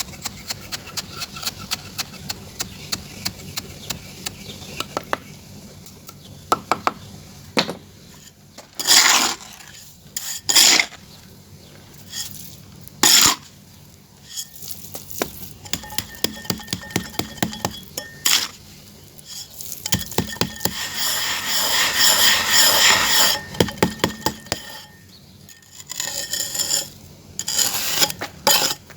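Hard tool or spoon tapping lightly and quickly on a small hard pot or dish, about three or four taps a second, then several short scrapes and a longer scrape across it, with more tapping near the end.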